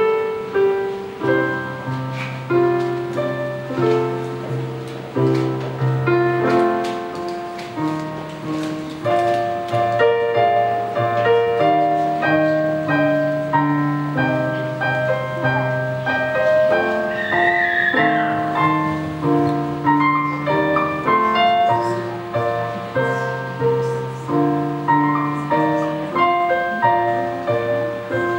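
Solo piano playing a slow piece of held chords over a steady bass line, each chord struck and left to fade.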